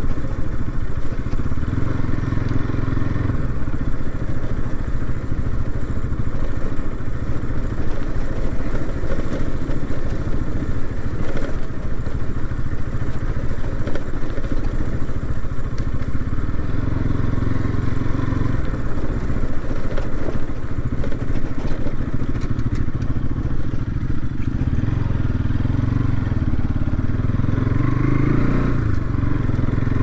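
Motorcycle engine running as the bike is ridden along a rough dirt trail, its note shifting with the throttle. Scattered small knocks run through it.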